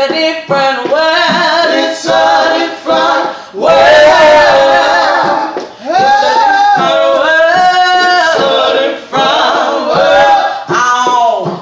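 A cappella vocal trio, a woman and two men, singing in close harmony with no instruments. Long held chords run through the middle, with shorter sung phrases either side.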